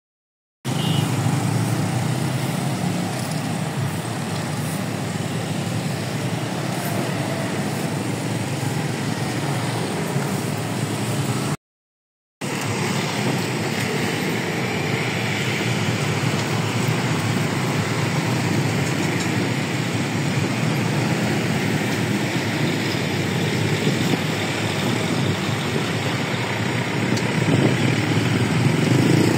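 Steady rumble of engine and traffic noise, broken by a brief silent cut about twelve seconds in. Near the end a low engine hum grows as a diesel locomotive approaches.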